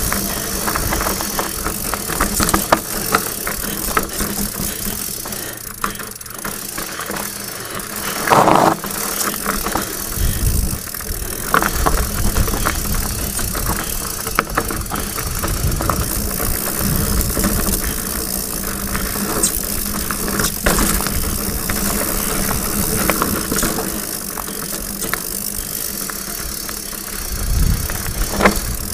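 Diamondback Mason Pro hardtail mountain bike rolling over a rough dirt trail: tyres crunching on dirt and rocks, with irregular clicks and clatter from the chain and frame, and wind gusting on the helmet camera's microphone.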